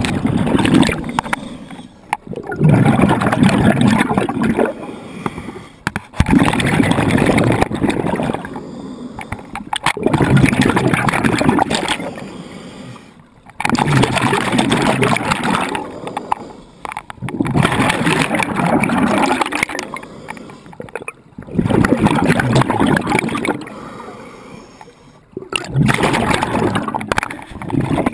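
Water surging and sloshing in a rock cave, in loud waves that rise and fall every three to four seconds.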